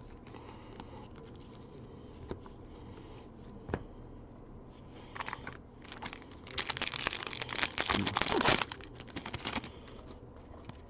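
Foil trading-card pack wrapper being torn open and crinkled, the loudest crackling lasting about two seconds past the middle, with a few light clicks before it.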